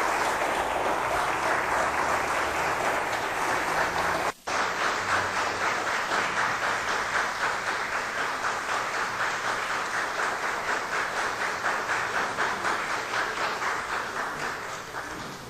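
Audience applauding, the dense clapping briefly cut off about four seconds in. It then settles into a regular pulse of about two beats a second before fading near the end.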